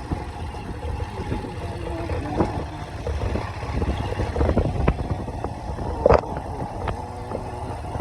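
A vehicle's engine rumbles steadily while riding over a rough unpaved road. Scattered knocks and rattles from bumps cut in, the loudest about six seconds in.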